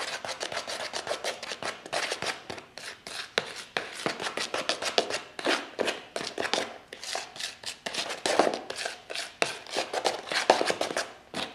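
Bleach powder and cream developer being stirred into a stiff paste in a plastic container, the stirrer scraping and tapping against the container in quick, uneven strokes, several a second.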